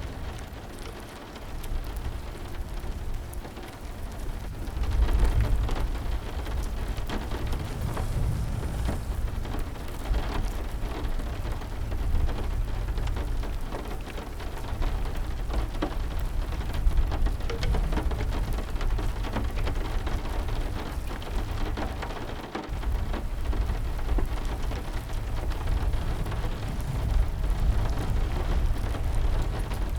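Heavy rain falling steadily with dense pattering drops over a deep rumble of thunder, which swells about five seconds in.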